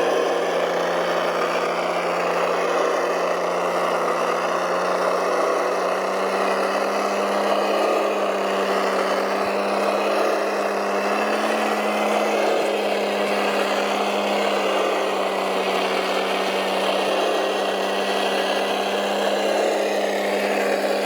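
Radio-controlled model truck running: a steady engine-like drone whose pitch rises slightly about halfway through and then settles.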